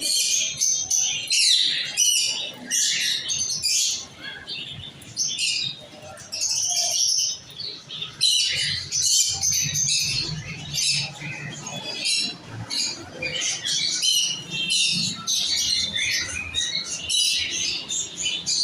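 Many caged parrots chirping and squawking at once, a dense, continuous high-pitched chatter.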